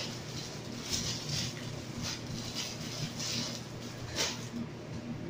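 Plastic packaging rustling and crinkling in irregular bursts as items are unwrapped, with a sharper crackle about four seconds in, over a faint steady hum.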